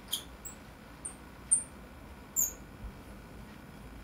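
Five or six short, high-pitched metallic squeaks and clicks from small steel watch parts, the case back and its tiny screws, rubbing and seating as the back is fitted. The loudest comes about a second and a half in.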